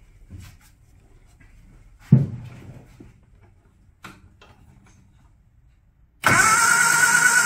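A single thump about two seconds in and a click near four seconds, then about six seconds in the Austin A-series engine's starter motor starts cranking it loudly and steadily, with a wavering whine, and the engine does not fire: no spark at the plug being tested.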